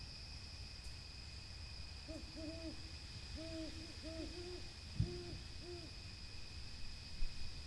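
An owl hooting: a quick run of about eight short hoots over a steady, high insect trill, with a brief low thump midway through.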